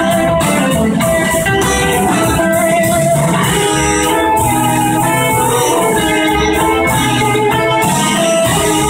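Live band playing loudly: two electric guitars over a drum kit, with a horn section of saxophone, trumpet and trombone.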